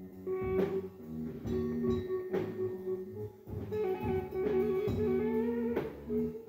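Live rock band playing: an electric guitar holds long notes and bends them upward over drums and a second guitar.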